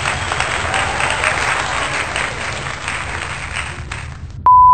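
A crowd applauding, as an added sound effect that cuts off abruptly about four seconds in, over the low rumble of a car driving. Just before the end a loud steady single-tone beep starts.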